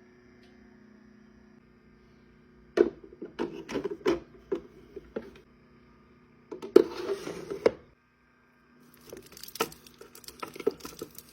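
Items being handled by hand: a run of sharp clicks and knocks, a second or so of crinkling about two-thirds of the way through, then more knocks, over a faint steady hum.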